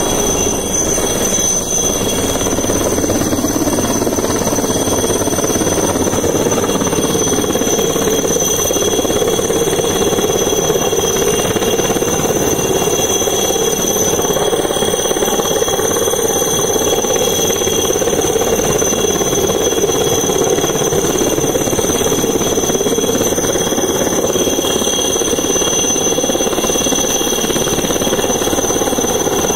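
Helicopter flying low overhead: a steady rotor chop with thin, steady high whining tones above it.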